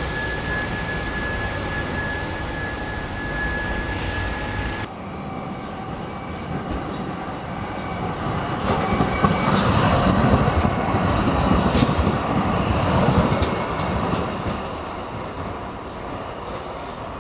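A trolleybus running along the street with a steady high whine. About five seconds in, this gives way to a TFS low-floor tram approaching and passing, its wheels rumbling on the street rails with a few sharp clicks. It grows loudest in the middle, then fades as it goes by.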